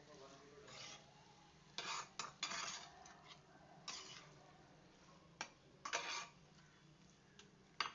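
A utensil scraping and clinking against cookware as food is stirred and mixed, in short irregular strokes a second or so apart.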